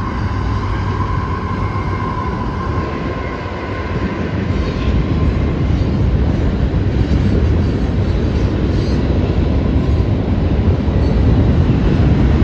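Freight train cars rolling across a railway bridge: a steady low rumble that grows louder about four seconds in. A high steady tone sounds over it for the first few seconds, then fades.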